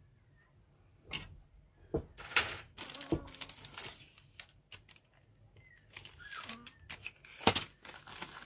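A plastic kit sprue being put down and a clear plastic parts bag being handled: irregular sharp clicks and crinkling rustles, in a busy patch about one to three seconds in and again near the end.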